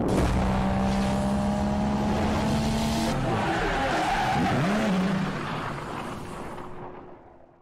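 Sound effect of a car engine revving with tyres squealing in a skid. About halfway through the engine pitch swings up and back down, then the sound fades out near the end.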